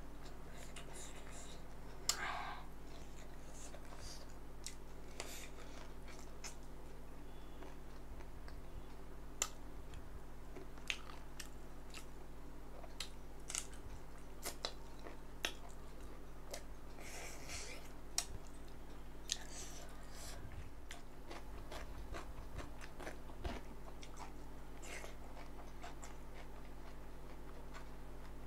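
A person chewing and biting food close to the microphone, with scattered sharp clicks and occasional crunches, over a steady low hum.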